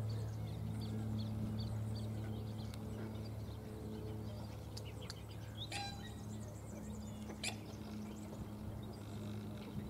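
Faint, short high bird chirps scattered over a steady low hum, with two sharp clicks in the second half.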